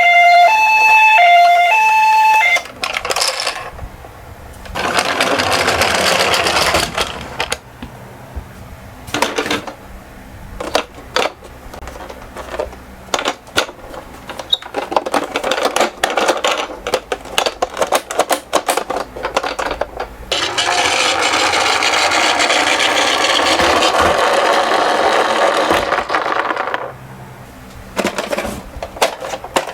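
A toy ambulance's electronic hi-lo siren alternates between two tones and cuts off about two and a half seconds in. Then toy minicars click and rattle, with two stretches of steady rushing rumble from small wheels rolling down a slope track. The longer stretch, about six seconds, comes in the second half.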